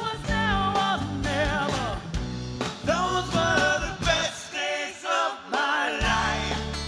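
Live acoustic band music: strummed guitar and bass under a voice singing sliding, wavering notes, with the bass dropping out briefly around five seconds in.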